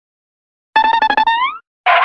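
Cartoon taunt sound effect: a rapid fluttering, trilled instrument tone lasting under a second that bends upward at the end. Just before the end a harsh cartoon tire-screech effect starts.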